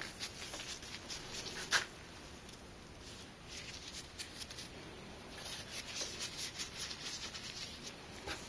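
Faint rubbing, scraping and small clicks of hands working thermal compound over a CPU and heatsink, with one sharp click a little under two seconds in.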